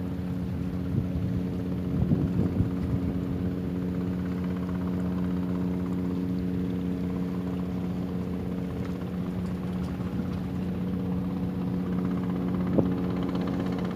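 Boat engine running steadily, an even drone that holds its pitch. A few short knocks come about two seconds in and again near the end.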